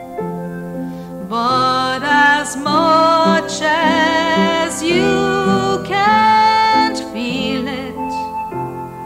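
Music from a slow song: sustained keyboard chords, with a high, wavering melody line over them that drops out about a second before the end.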